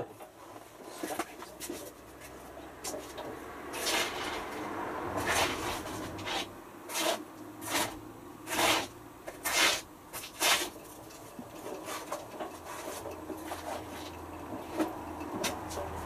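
Hotpoint HF8B593 front-loading washing machine tumbling a small load of wet laundry: a run of swishing, splashing strokes about once a second as the clothes drop in the turning drum, mostly in the middle stretch, over a faint low hum from the machine.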